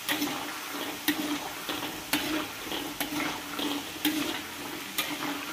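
Diced potatoes deep-frying in hot oil in a wok, a steady sizzle, with a utensil knocking and scraping against the wok about once a second as they are stirred.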